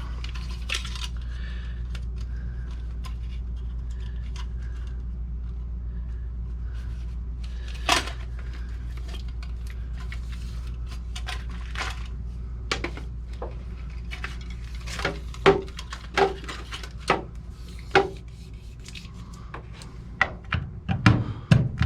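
Small metal parts and hand tools clinking and tapping as they are handled, in scattered knocks that come more often in the second half, over a steady low hum.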